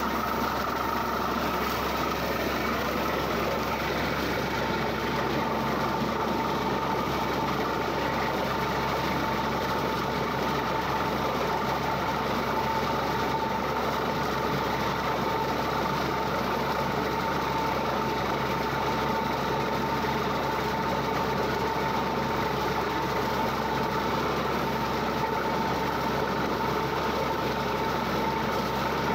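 Borewell drilling rig running steadily at the wellhead: continuous heavy engine and machinery noise with a steady whine on top, unchanging throughout.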